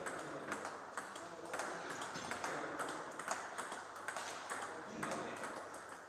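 Irregular clicks of table tennis balls striking rackets and tables, over a faint murmur of voices.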